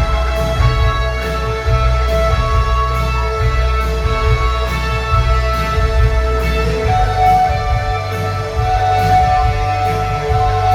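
Live rock band playing an instrumental passage: held guitar and synth-like notes over a steady bass line and a regular cymbal beat, with no vocals.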